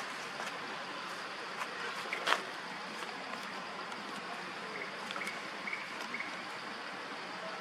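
Steady outdoor background hiss like running water, with faint short high chirps in small groups and one brief sharp sound about two seconds in.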